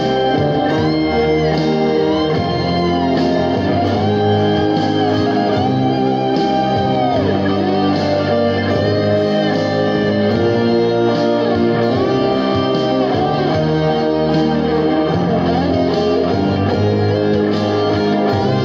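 Black Stratocaster-style electric guitar playing a slow, sustained lead line with notes bent up and back down, over a steady backing track with bass and keyboards.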